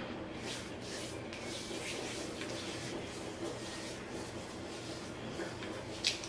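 Quiet scraping and rustling of eating at a table: a spoon in a plastic bowl and hands handling food, with one sharper click near the end.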